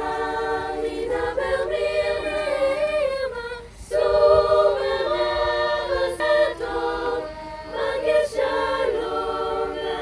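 A choir singing a cappella, several voices holding sustained chords and moving between them, with a short breath-pause about four seconds in.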